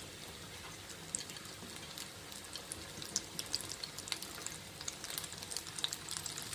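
Pakoras frying in hot oil: a steady sizzle with scattered crackles that grow busier toward the end.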